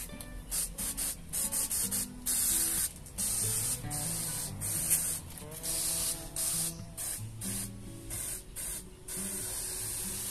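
Handheld pressure sprayer with a wand misting plain water over potted seedlings in irregular short bursts of hiss as the nozzle is opened and closed.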